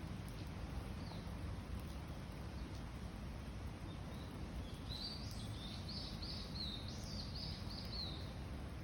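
A songbird sings a quick run of about eight repeated chirps from about halfway in, over steady low background noise.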